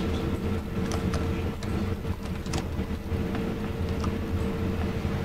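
Scattered computer keyboard keystrokes and mouse clicks over a steady low room hum.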